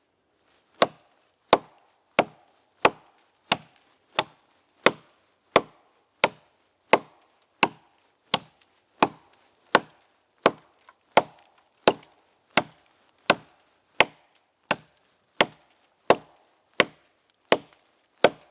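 Axe chopping into a thick oak log, bucking it through the middle with short, even strokes, about three sharp knocks every two seconds.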